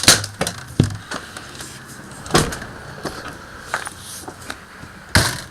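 Scattered knocks and clunks from walking through a travel trailer, a few seconds apart, the sharpest near the end, over a faint steady hum.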